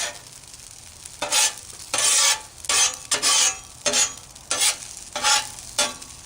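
Metal spatula scraping and tossing rice on a hot Blackstone steel griddle top, about eight quick strokes starting about a second in, over a faint sizzle of rice frying in butter.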